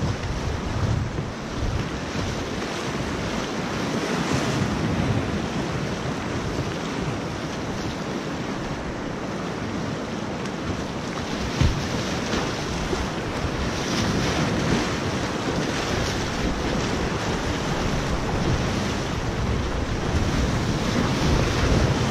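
Whitewater rapids rushing and splashing around a kayak in a constant, heavy roar of water, with wind buffeting the microphone. A single short thump about halfway through.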